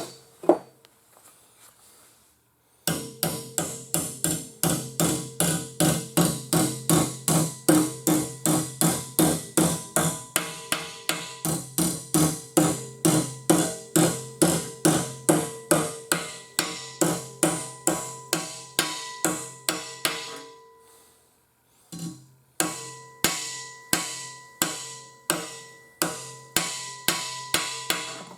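A hammer striking steel sheet metal in steady blows, about two to three a second, each blow ringing with a metallic tone, as a flange is hammered over against angle iron clamped as a makeshift brake. The hammering stops for a moment near two-thirds of the way through, then picks up again at the same pace.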